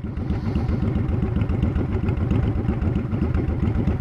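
The 2007 Honda Shadow Spirit 750's V-twin idling steadily through a Cobra Streetrod Slashdown aftermarket exhaust, heard from about 10 feet away, with a quick, even run of exhaust pulses.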